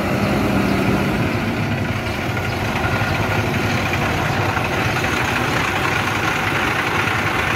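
Engine of an International chicken bus, a converted school bus, running steadily as the bus pulls up and idles close by, with road traffic passing.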